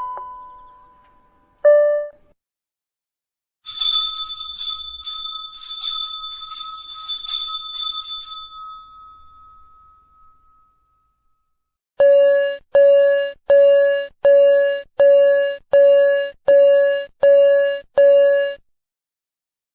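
A series of school bell signals. It opens with the last notes of a chime melody dying away. Then a high-pitched bell rings rapidly for about five seconds and fades out. Near the end comes a run of ten evenly spaced single-tone dings, about 0.7 s apart.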